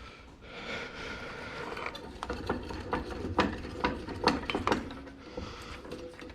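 Clicks and rattles of small metal parts as a paintball marker is taken apart by hand: a rustle at first, then a quick run of sharp clicks in the middle.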